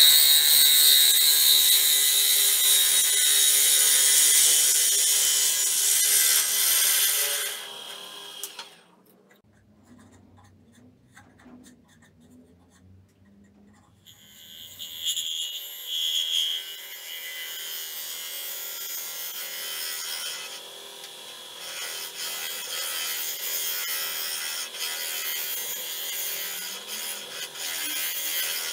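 A lathe tool cutting the inside of a spinning Itín wood bowl: a steady hissing scrape as shavings come off, loud at first. About eight seconds in the cutting stops for roughly five seconds, leaving only a faint low hum, then it resumes more quietly.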